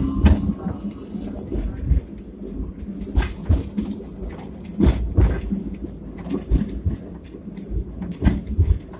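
Hong Kong double-decker electric tram running along street track, heard from inside the car: a low rumble with irregular knocks and rattles, the strongest about halfway through.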